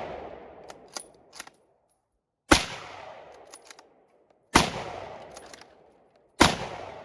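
Three rifle shots from a Savage 110 bolt-action .30-06 firing 180-grain rounds, about two seconds apart, each ringing out in a long fading echo. Short metallic clicks between shots are the bolt being worked.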